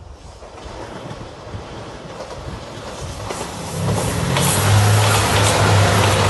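JR 2700 series diesel limited-express train approaching and running past, the rumble growing steadily louder. A low diesel engine drone comes in about four seconds in, with a few sharp clacks of wheels over the rails.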